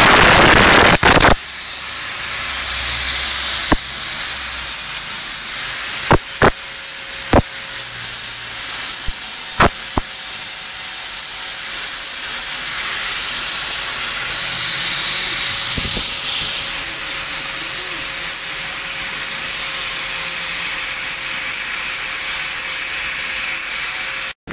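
Electric angle grinder running and grinding on the metal cylinder of a Kriss 110cc motorcycle engine: a steady, high-pitched grinding hiss over a constant motor whine. It is loudest in the first second or so, has a few sharp clicks in the first ten seconds, and cuts off suddenly just before the end.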